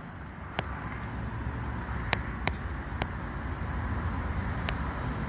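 A full-face motorcycle helmet being handled and pulled on: several sharp clicks and knocks over a steady low outdoor rumble.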